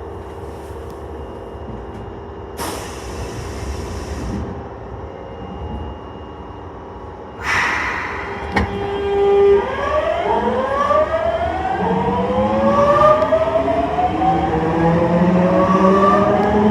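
Osaka Metro Tanimachi Line train (car 22618) pulling away: after a burst of hiss about three seconds in and a sharp sound about halfway, its traction motors whine in several high-pitched tones that rise together and grow louder as the train accelerates.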